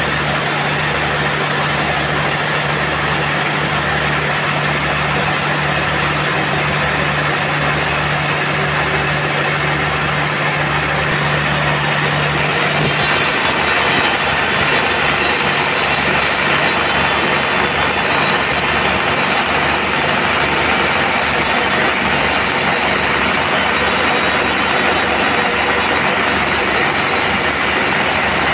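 Sawmill band saw running and cutting through a teak log: a loud, steady mechanical noise. About halfway through, the sound changes abruptly: a low hum drops out and a harsher, hissier tone takes over.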